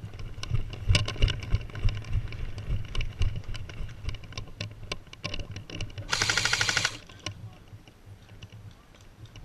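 Scattered knocks and rattles of a player moving with gear, then about six seconds in a rapid burst of full-auto fire from an airsoft gun, lasting under a second.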